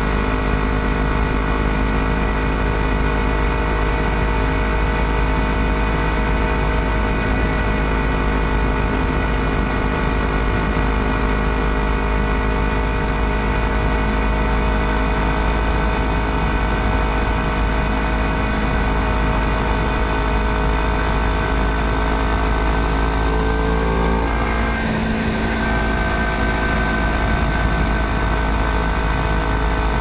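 Honda CBR250RR's parallel-twin engine running at a steady engine speed while the bike rides along. The engine note shifts briefly about 24 seconds in, then settles again.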